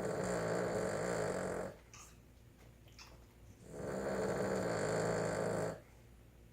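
A Boston Terrier, a short-nosed breed, snoring in its sleep: two long snores of about two seconds each, the second beginning about halfway through. Between them is a quiet gap with a couple of faint clicks.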